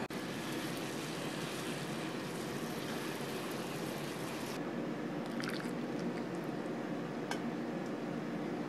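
Clear soup heating in a small aluminium pot on a gas burner: a steady hiss from the flame and warming liquid, as small bubbles start to form. About halfway the hiss stops suddenly, leaving a low steady hum and a few faint clicks.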